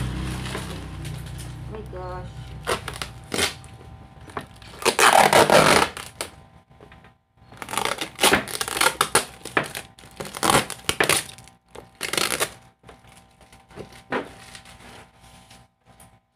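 Plastic packaging and bubble wrap crinkling and crackling as items are unwrapped and handled, in a series of separate bursts with the loudest a third of the way in.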